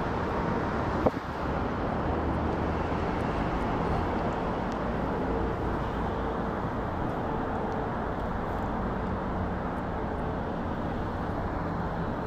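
Distant jet roar of a Boeing 777-300ER's GE90-115B turbofans as the aircraft climbs away after take-off, a steady low rumble slowly fading. A single sharp click about a second in.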